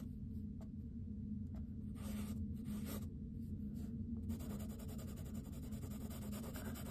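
An inkless 'eternal pencil' scratching on sketch paper. It makes a few short strokes, then more continuous drawing from a little past halfway.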